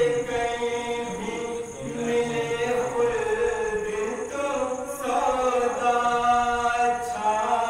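A solo male voice chanting a devotional kalam into a microphone, in long held melodic lines with short breaks for breath, without instruments.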